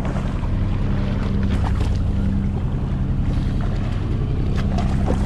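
Fishing boat's engine running at idle with a steady low hum, over wind and sea noise.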